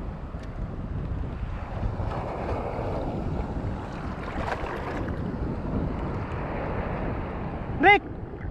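Wind buffeting the microphone, with the wash of shallow sea water; a short shout near the end.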